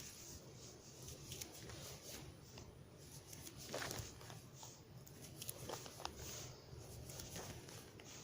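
Faint rustling and handling of a sardine fishing net being mended by hand, with a few soft ticks and clicks, the clearest about four seconds in and again near six seconds.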